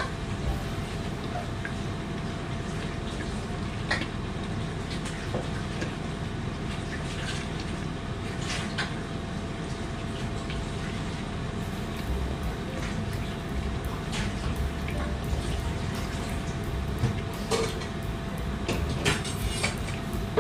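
Steady hiss of a kitchen with food cooking and a faint steady hum, with scattered clinks and knocks of utensils and cookware and a few sharper clatters near the end.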